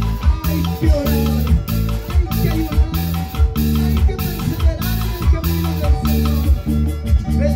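Live band playing an instrumental passage: harp with a drum kit and cymbal keeping a steady beat over a strong bass.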